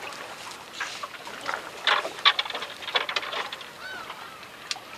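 Scattered sharp crinkles and clicks as bait and tackle are handled, with a short honking bird call about four seconds in.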